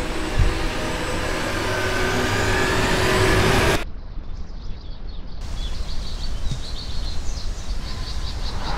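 A loud rumbling drone that swells for about four seconds and then cuts off abruptly, followed by quiet woodland ambience with faint, rapid high bird chirps.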